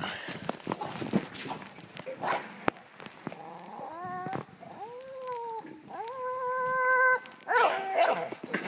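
Staffordshire bull terrier giving about four long, high whining cries that rise and fall, from about four seconds in, while straining at a tow rope. Before the cries there are scattered knocks and clatter.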